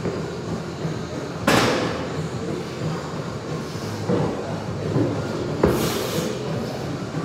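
Steady gym background rumble, broken by two sharp clanks of barbell weight plates: one about a second and a half in, and a deeper clank and thud near the end.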